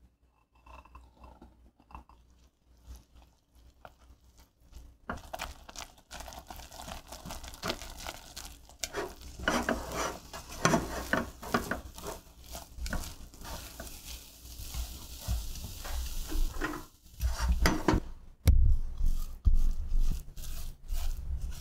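Silicone spatula stirring and scraping thick choux pastry dough around a stainless steel saucepan as the flour paste is cooked until a thin film forms on the pan bottom. The stirring starts about five seconds in and grows busy, and near the end turns to duller, lower knocks as the dough is mixed off the heat.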